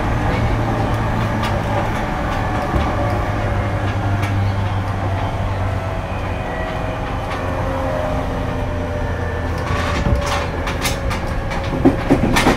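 Running sound inside a JR East 205 series 5000 subseries motor car. The Toyo IGBT-VVVF inverter and traction motors whine in several tones that fall slowly in pitch as the train slows, over a steady wheel-and-rail rumble. A few sharp clacks come near the end.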